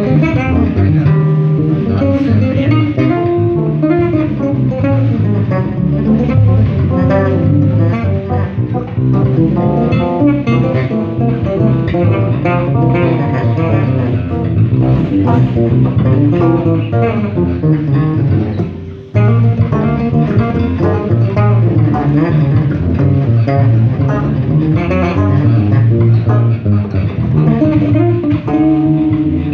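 Three electric bass guitars played together through amplifiers, jamming a groove of busy plucked bass lines and higher melodic notes. The playing stops briefly about two-thirds of the way through, then comes straight back in.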